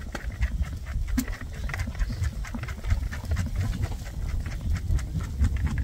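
Rabbit manure and papery rabbit litter pouring from a bucket onto a garden bed, many small pieces pattering and clicking as they land, over an uneven low rumble.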